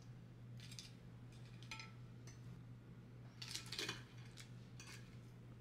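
Knives and forks scraping and clinking on ceramic plates as food is cut, a string of short faint scrapes with the loudest about three and a half seconds in.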